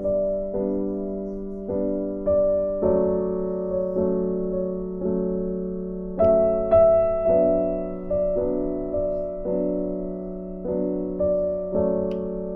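Background piano music: a slow, gentle melody of struck notes about every half second, each fading before the next.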